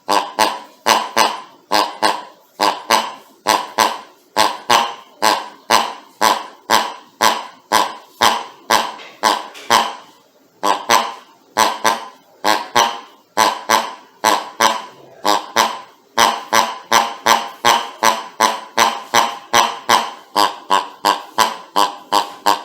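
Squeaky rubber pig dog toy squeezed over and over, giving short honking squeaks, the toy's 'ronc ronc' grunt, about two or three a second. There are brief pauses about ten and fifteen seconds in.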